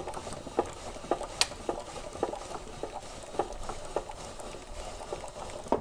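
Hand crank of a small roll-up clear-film weather-protection blind being turned, its worm drive winding the film up onto the roller shaft. It makes a continuous soft rustle with irregular light clicks and ticks.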